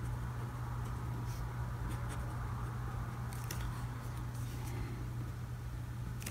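Faint scratching of a Tombow ABT brush pen's tip on paper as strokes are shaded in, with a few light ticks, over a steady low hum.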